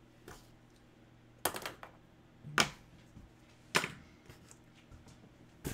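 Four sharp clacks and knocks about a second apart, with a faint one just before them, as things are handled on a desk around an opened cardboard shipping box.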